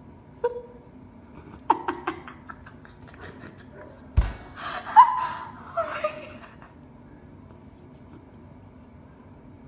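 A person laughing in short bursts, loudest about five seconds in, with a thump on the microphone just before.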